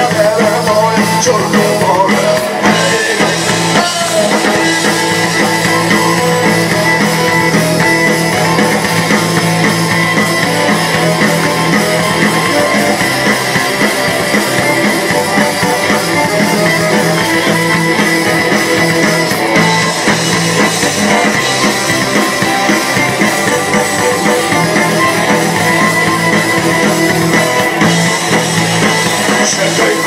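Rock band playing live through a PA: electric guitar, bass guitar, drum kit and accordion.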